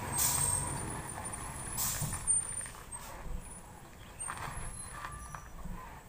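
Heavy diesel logging truck loaded with timber, its engine rumbling low as it moves away over a rough gravel road and growing fainter. Two short hisses of air come from the brakes, about a quarter second in and again about two seconds in.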